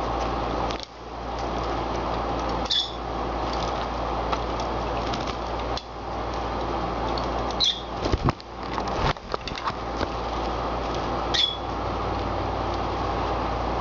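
Rosy-faced lovebirds bathing in a shallow plate of water: wing-flapping splashes, loudest in a burst about eight seconds in, and three short chirps that fall in pitch, over a steady background hum.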